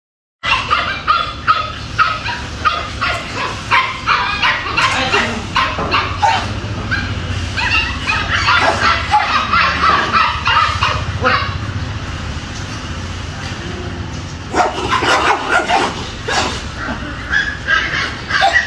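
Dogs barking angrily in rapid, repeated barks and yips. The barking eases off for a couple of seconds about two-thirds of the way through, then starts again.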